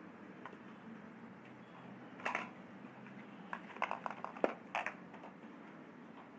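Handling clatter of makeup items: a sharp click a little over two seconds in, then a quick run of light clicks and taps between about three and a half and five seconds in, as a brush is put down and a mascara box is picked up. Under it there is a low steady room hum.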